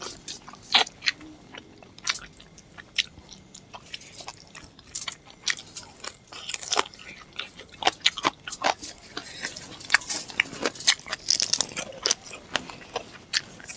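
Close-up eating sounds: a person biting and chewing chicken curry on the bone, with many short sharp clicks and snaps that come thicker after about six seconds.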